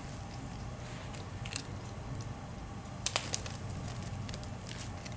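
A cat crunching small dry cat treats, with a few sharp crunches about one and a half and three seconds in.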